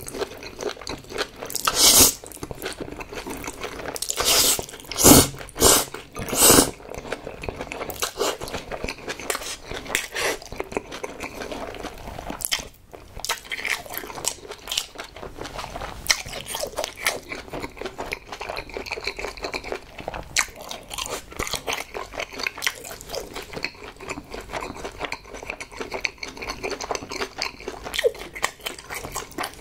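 Close-miked eating of spicy Korean bibim noodles: a few loud slurps in the first seven seconds as the noodles go in, then steady wet chewing.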